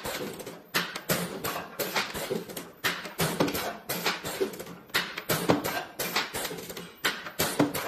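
Background music with a steady beat of sharp percussive strokes about twice a second.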